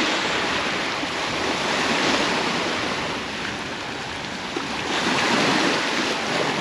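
Ocean surf washing onto a beach: a steady rushing that swells and eases twice.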